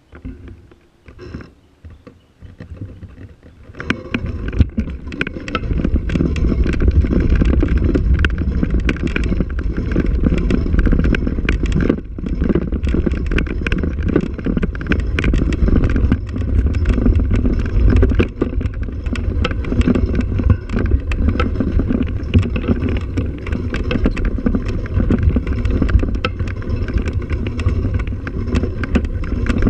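A vehicle riding over a rough dirt track, heard as dense rumbling and rattling with many quick knocks. It is quieter and broken for the first few seconds, then loud and continuous from about four seconds in.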